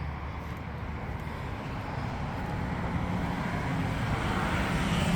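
Road vehicle approaching, its traffic noise growing steadily louder.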